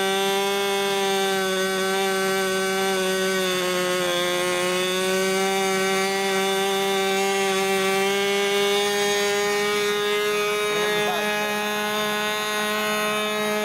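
OS Max .10 two-stroke glow engine on a model airplane running at full speed with no throttle, a steady high-pitched buzz. Its pitch sags slightly about four seconds in and then climbs back.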